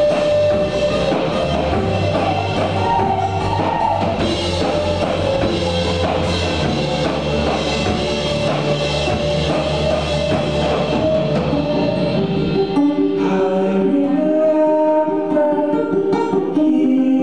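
Live band playing: banjo, electric bass guitar, drum kit and keyboard, with singing. About thirteen seconds in the bass and drums drop out, leaving a sparser sound of banjo and voices.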